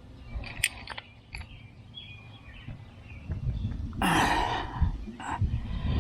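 Light metallic clicks of hydraulic fittings being handled and threaded, then rumbling handling noise with a short rasping scrape about four seconds in.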